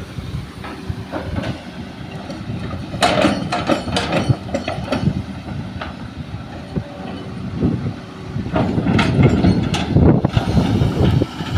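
Hydraulic excavator's diesel engine running, with bouts of clattering as soil and rocks drop from the bucket into a dump truck's bed. The clatter comes twice, the second bout about two-thirds of the way in and the louder one.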